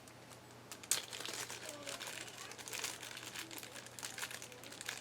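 Crinkling and small sharp clicks, starting about a second in, as a kit of tiny M.2 screws is handled and a screw is picked out.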